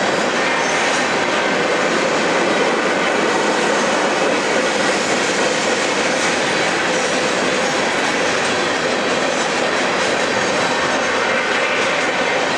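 Freight train of covered hopper cars rolling past close by: a steady, loud noise of steel wheels running on the rails, with the diesel locomotives pulling away at the head of the train.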